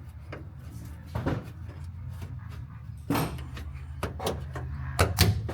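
Several sharp knocks and clunks, a second or two apart, with two close together near the end, over a steady low hum.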